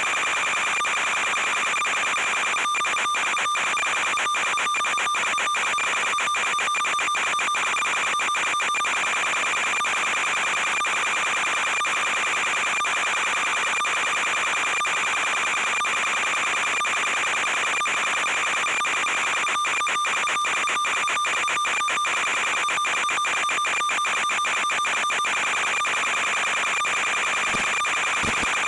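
Steady electronic buzz and hiss with a fixed high whine, the static of an analog FPV video link's audio channel. In two stretches, a few seconds in and again past the middle, it breaks up into rapid crackling dropouts.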